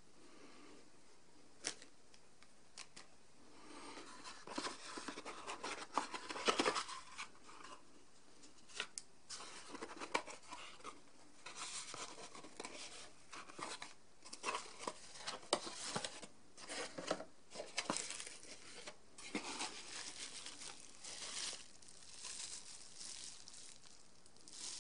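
Cardboard box and bubble-wrap packaging being handled and unpacked by hand: irregular rustling and crinkling with light clicks and knocks, which start in earnest about four seconds in.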